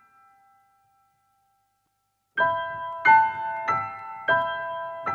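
Solo piano music. A held note fades away, and after about two seconds of silence, notes are struck roughly every half second, each ringing on as it decays.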